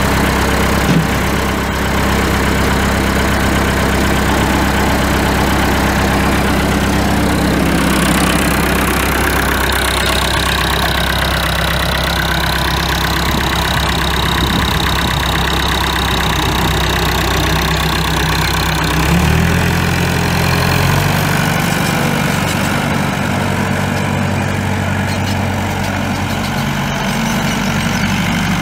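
Massey Ferguson 261 tractor's Perkins 3.7L four-cylinder diesel idling steadily. About two-thirds of the way through, the engine speed picks up and then holds a little higher.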